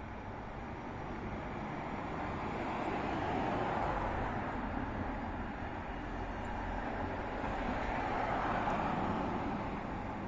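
Street traffic: vehicles passing by, their tyre and engine noise swelling twice.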